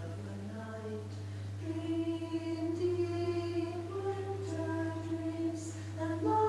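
A recorded old solstice song: a female voice singing slow, long held notes that step from pitch to pitch, coming in about a second and a half in, over a steady low hum.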